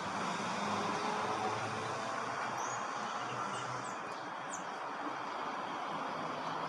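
Steady outdoor background hum of distant traffic, with a few faint, very short high chirps around the middle.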